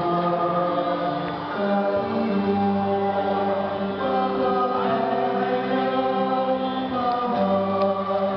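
A choir singing in long, held notes that change pitch every second or so.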